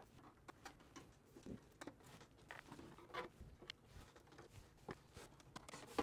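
Faint, scattered small clicks and taps as screws are backed out of a computer case's back panel with a hand screwdriver and set down on the bench.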